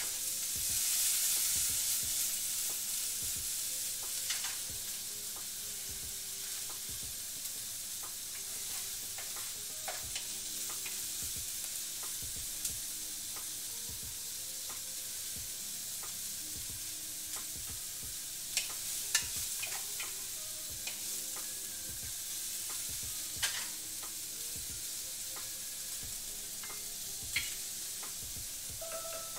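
Vegetables frying in olive oil in a pan on the stove: a steady sizzling hiss, loudest in the first few seconds just after more oil goes in. A few light clicks and knocks of utensils or cookware come through later.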